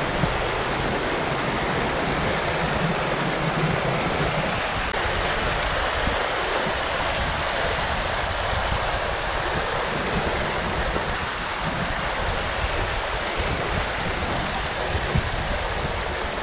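River water rushing steadily over rocks in a shallow rapid.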